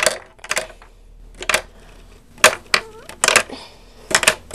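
Lego candy machine's plastic bricks clicking and knocking as it is handled: about ten short, sharp, irregular clicks, several of them in quick pairs.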